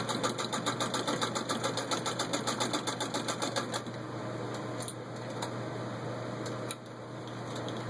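A 1918 Singer 66-1 sewing machine, turned by hand crank, stitching through six layers of denim: a rapid, even clicking of the needle strokes at about six a second, stopping a little before halfway through. A few faint clicks follow over a steady hum.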